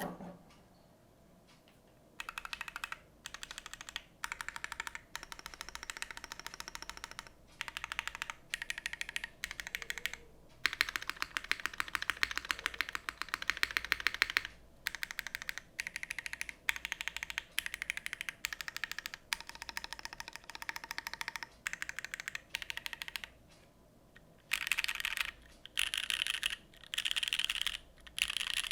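Typing on an RS60 mechanical keyboard with Gateron Everfree Curry linear switches lubed with Tribosys 3204, GMK keycaps and an aluminium plate. After a brief knock at the very start and a short pause, the keystrokes come in bursts of rapid clicks with short breaks between, fastest about halfway through.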